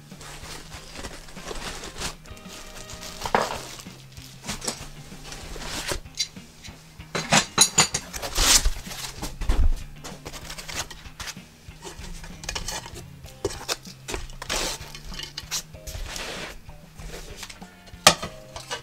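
Metal parts of a 3D printer kit clinking, clattering and scraping as they are handled and lifted out of foam packing, in irregular knocks with a busy cluster about halfway through and one sharp knock near the end.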